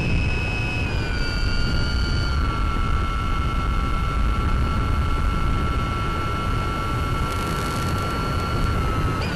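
Brushless electric motor of a Mini Talon FPV plane (Sunnysky 1240kv driving an 8x6 prop) heard from on board in flight: a steady whine over low wind rumble. The whine steps down slightly in pitch about one and two and a half seconds in as the throttle is eased back.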